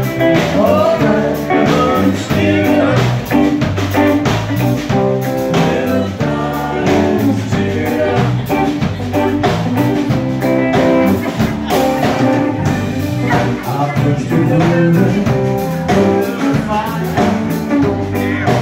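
Live band playing amplified electric guitars over a drum kit, with a steady beat.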